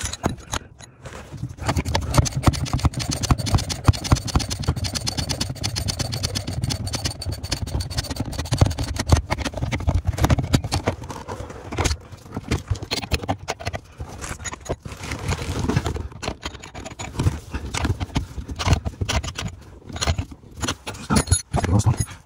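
Dense clicking, knocking and scraping of metal and plastic parts being handled at a BMW E60's clutch pedal assembly in the footwell. It is busiest through the first two-thirds, then thins to scattered clicks and knocks.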